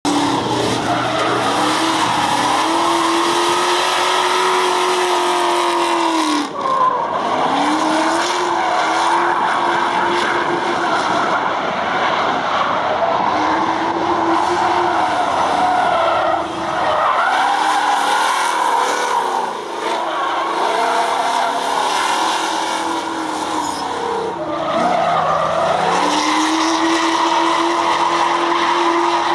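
Chevrolet Beretta drift car's engine held at high revs with the tyres squealing through a drift. The revs drop briefly and climb back up four times.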